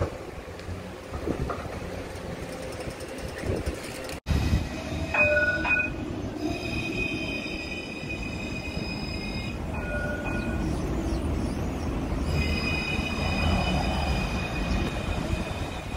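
Trams at a stop: a low running rumble. After a break about four seconds in, a C1-class tram gives a steady high-pitched whine that comes and goes in long stretches, with a couple of short beeps.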